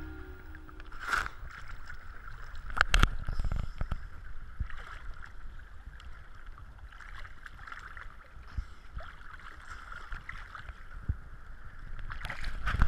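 Sea water sloshing and splashing around a camera floating at the surface among small waves, with sharp splashes, the loudest about three seconds in.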